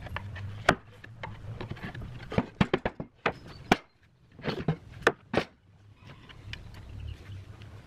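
Irregular sharp knocks and clicks of wooden planks being handled: a thin metal rod tapping and scraping in holes in a board, then planks lifted and knocked against a wooden worktable, over a low steady rumble.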